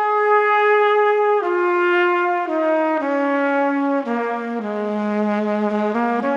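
Relaxing background music: a slow solo melody of long held notes on a single wind-like instrument, stepping down in pitch and rising again near the end.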